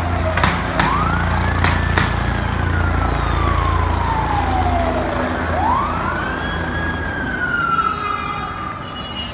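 A wailing siren sweeps slowly up and down, each rise and fall taking about five seconds, over a steady low rumble. Four sharp bangs crack out in the first two seconds.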